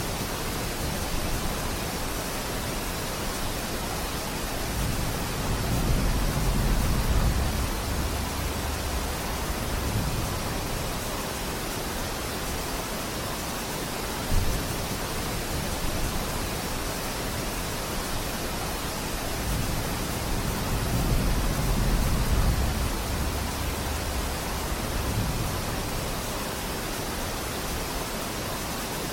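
Steady hiss of heavy rain falling in a forest. Low rumbles swell up twice, about a fifth of the way in and again past the halfway point, and there is one brief thump near the middle.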